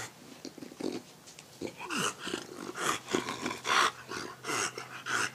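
English bulldog panting in rough, noisy breaths about two a second, with a short grunt in the middle, from the exertion of humping.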